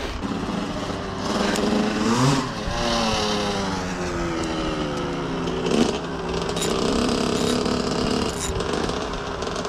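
Another rider's two-stroke motorcycle running, revving up and down several times so that its engine pitch rises and falls, fading toward the end.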